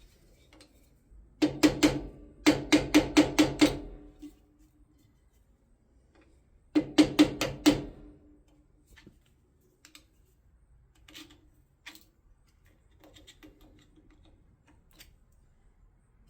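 Hammer blows on steel front-end suspension parts: three quick runs of sharp, ringing strikes at about six a second in the first half, then a few faint taps.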